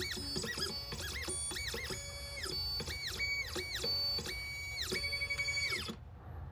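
Xhorse Condor Dolphin XP005 key cutting machine's stepper motors whining as the machine runs its automatic clamp calibration. Each move is a tone that rises, holds and falls, over and over, and the motors stop about six seconds in.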